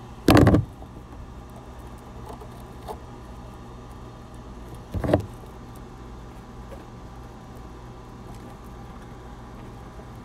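Pliers squeezing and handling a thick amplifier power cable: two short, loud clattering knocks, one about half a second in and one about five seconds in, with a few faint clicks between. A low steady hum runs underneath.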